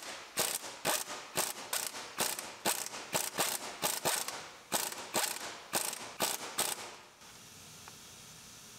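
Hand ratchet clicking in a run of short strokes as the bolts on a truck's front drive axle flange are tightened; the clicking stops about seven seconds in.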